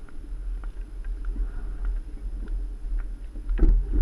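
Wind buffeting the microphone of a camera on a bicycle moving at speed, a steady low rumble with scattered light clicks and a louder burst near the end.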